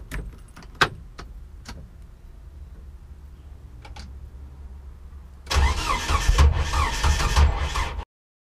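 A 1993 Jeep Wrangler YJ's ignition switched on for a first start after restoration: a few sharp clicks of the key over a low steady hum, then about five and a half seconds in the starter cranks the engine loudly and unevenly for over two seconds before cutting off suddenly.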